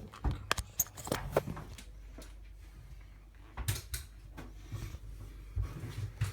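Handling noise at a microwave: a quick cluster of clicks and knocks in the first second and a half, two more knocks about three and a half seconds in, and a few more near the end, over a low steady hum.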